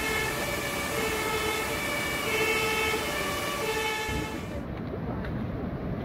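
Two-tone emergency-vehicle siren sounding, switching back and forth between a low and a high note about every 0.7 seconds, over a steady rushing noise. About four and a half seconds in it cuts off abruptly to a duller rushing noise of floodwater and wind on the microphone.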